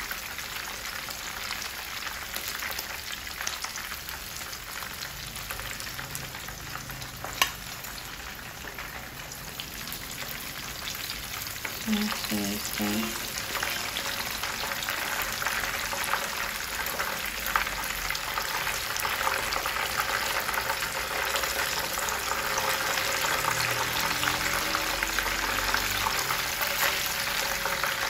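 Croaker fish pieces deep-frying in hot oil: a steady crackling sizzle that grows louder in the second half, with metal tongs turning the pieces in the pan. A single sharp click comes about a quarter of the way in.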